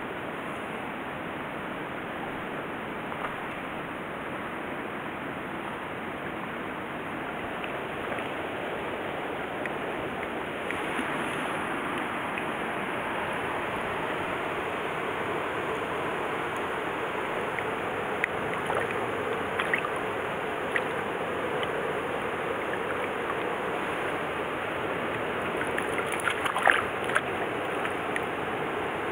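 Steady rush of flowing stream water, growing a little louder about a third of the way in, with a few light clicks and taps in the second half.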